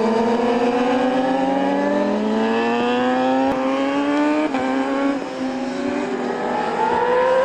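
Racing motorcycle engine accelerating hard, its pitch climbing steadily and dropping briefly at upshifts about midway, then climbing again.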